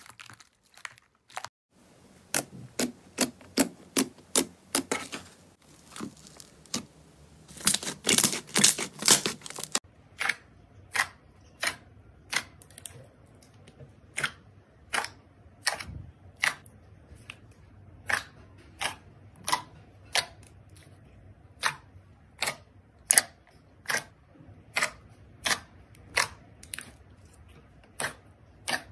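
Slime squeezed and folded by hand, giving sharp clicking pops as pockets of trapped air burst, about one or two a second, with a quick dense run of louder pops about a third of the way through.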